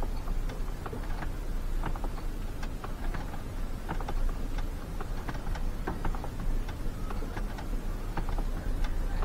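Inside a truck's sleeper cab: a steady low rumble with frequent light, irregular clicks and creaks as a man does sit-ups on the bunk.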